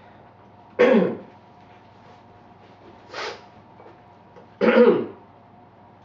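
A person clearing their throat and coughing: two loud throat-clearing coughs, about a second in and near the end, with a softer one between.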